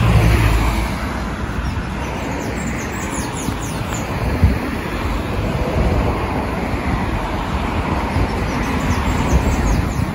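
Road traffic going by in a steady wash of tyre and engine noise, louder as a car passes right at the start. Short high falling chirps come in between about two and four seconds in.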